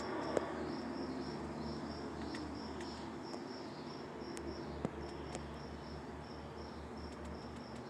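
Crickets chirping in a steady high-pitched pulsing rhythm, about four pulses a second, with a couple of faint clicks.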